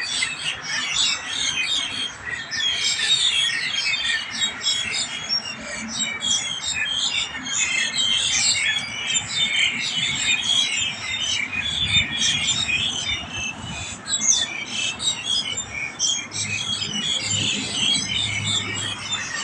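A flock of mynas squawking and chattering together: a dense, unbroken chorus of many harsh, overlapping calls.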